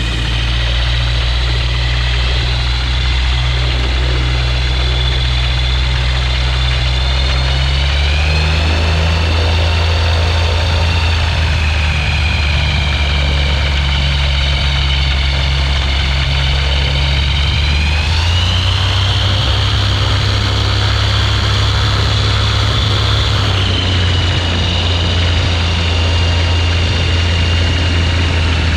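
Ultralight aircraft engine and propeller running steadily, the engine note shifting in pitch a few times, about eight seconds in and again near eighteen seconds.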